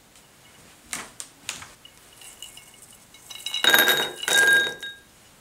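Toasted almonds poured from a ceramic baking dish into a small glass bowl, clattering against the glass, which rings with a bright clink, about three and a half seconds in and lasting just over a second. A few sharp knocks come first, about a second in.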